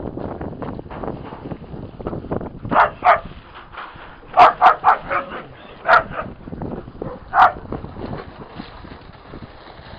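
Dog barking in short barks: two about three seconds in, three in quick succession a little later, then two single barks spaced apart.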